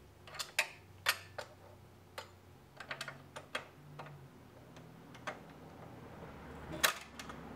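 Metal pin spanner clicking against the stepped spring-preload adjuster collar of a Honda CBR250R's rear shock absorber as it is worked round to change the preload setting: a dozen or so sharp, irregular clicks, the loudest a little before the end.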